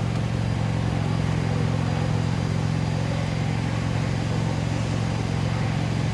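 2012 Toyota Camry engine idling steadily and smoothly, its misfire on cylinders 3 and 4 cured.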